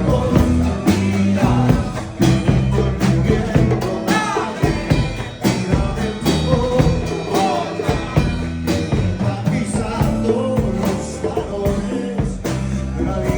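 Band music in a blues-rock style, with a bass line, a steady beat and a singing voice.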